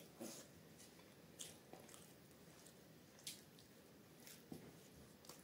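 Near silence with a handful of faint, short wet clicks: fingertips wiping the last bits of food off a plate.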